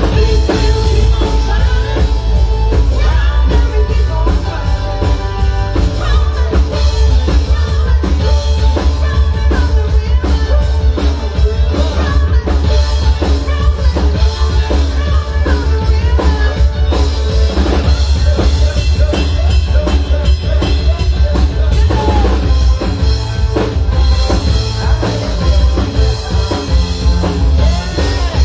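Live band music with a drum kit and heavy bass playing a steady beat, with some singing.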